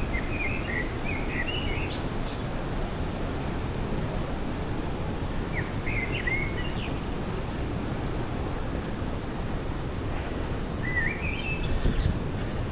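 A bird sings three short phrases of quick chirping notes, at the start, about midway and near the end, over a steady rushing noise.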